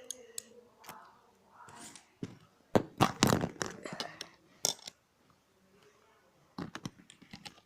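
Lego bricks being handled: irregular sharp plastic clicks and rattles, loudest in a cluster about three seconds in, with another group near the end and quieter handling rustle between.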